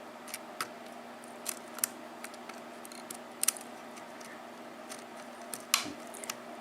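Lock pick ticking and clicking against the pins inside a six-pin Arrow KIK lock cylinder during single-pin picking, as pins are lifted and set. Scattered faint, sharp clicks at irregular intervals, over a faint steady hum.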